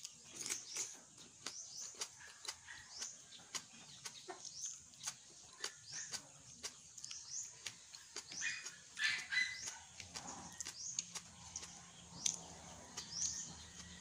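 Close-up mouth sounds of a person eating: steady chewing and lip-smacking clicks. High chirping calls of birds are heard in the background.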